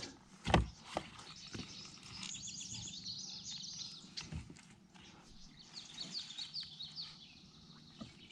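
A small songbird singing quick runs of high chirps, in two spells. A sharp thump comes about half a second in, with a few lighter knocks after it.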